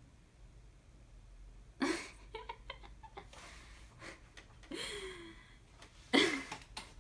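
A woman laughing softly to herself: short breathy bursts of laughter a few seconds apart, the loudest near the end, with a few light paper clicks from the card in her hands. It is quiet for the first two seconds or so.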